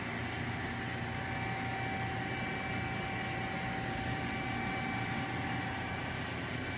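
Steady hum of a powered-up CNC vertical machining center standing by, with a thin steady whine over it.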